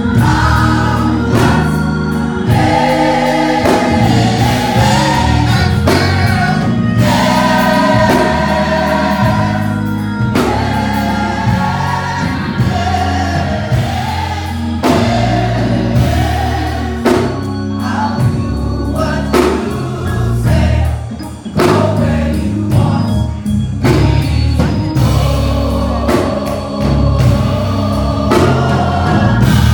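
Gospel choir singing in harmony over a band with bass, drums and organ.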